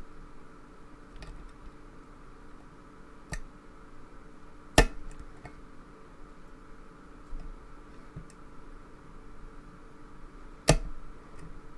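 Small sharp clicks from a pin-tumbler lock being picked with a lock pick and top-of-the-keyway tension bar: three clear clicks, the loudest about five seconds in and another near the end, with fainter ticks between.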